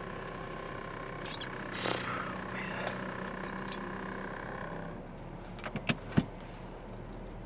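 A stainless-steel water bottle and its lid handled inside a car cabin, with light scraping, over a steady hum that stops about five seconds in. Then a few sharp clicks about six seconds in, the last the loudest.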